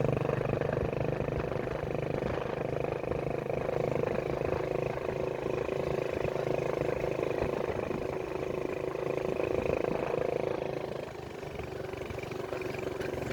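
An engine running steadily at an even pitch, easing off slightly for a moment about eleven seconds in.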